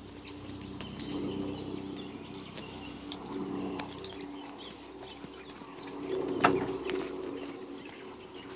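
Doves cooing low and repeatedly, swelling about a second in and again around three and a half seconds, with one brief louder sound about six and a half seconds in.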